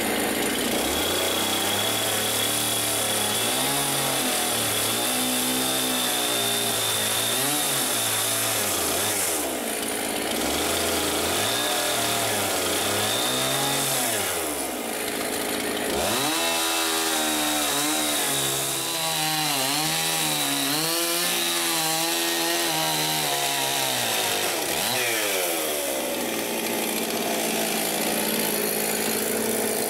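Petrol chainsaw cutting through a log wall, its engine pitch sagging and recovering again and again as the chain loads and clears in the cut, with brief changes around a third and half of the way through.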